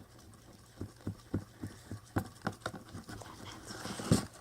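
Mixing tool stirring a wet glue mixture in a bowl: a string of short sticky clicks and taps, a few every second, with one louder thump near the end.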